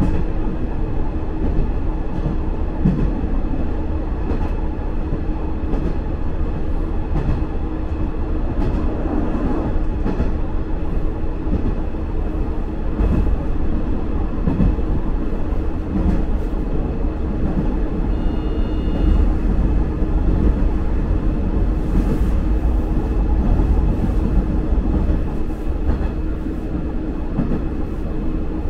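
Sanriku Railway diesel railcar running along the line, heard from inside the cabin: a steady low rumble and hum from the engine and wheels on the rails, with faint occasional clicks of the wheels over rail joints. A brief high tone sounds about 18 seconds in.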